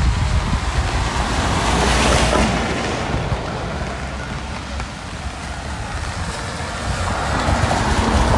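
Street traffic in the rain: a vehicle swishes past about two seconds in, its tyre hiss rising and fading, and another approaches near the end, over a steady hiss of rain and low wind rumble on the microphone.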